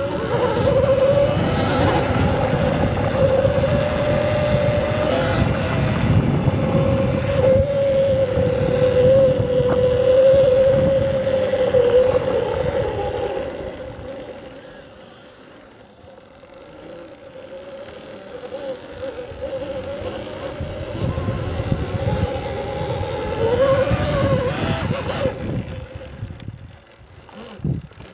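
Electric dirt bike under way: a steady motor whine that wavers with the throttle, over a low rumbling noise. It fades for a few seconds about halfway through, then picks up again before falling away near the end.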